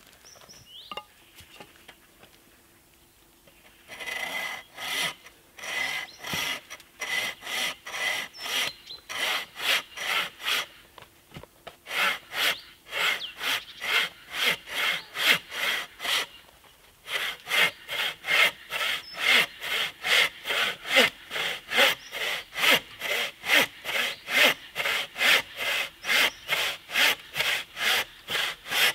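Hand saw cutting through a log in steady back-and-forth strokes, about two a second, starting a few seconds in and pausing briefly twice.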